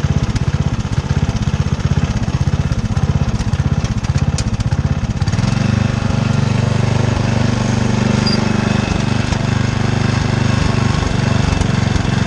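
Riding lawn mower's engine running with a rapid low chugging. About five seconds in its sound steadies and strengthens as the mower pulls off towing the wagon.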